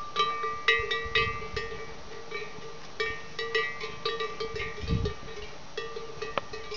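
Several cowbells on grazing cattle clanking irregularly, the strikes overlapping with a steady ringing.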